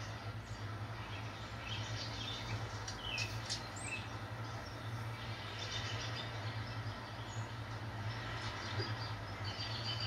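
Birds chirping in a backyard ambience, played through a TV's speaker: clusters of short high chirps in the first half and again near the end, over a steady low hum.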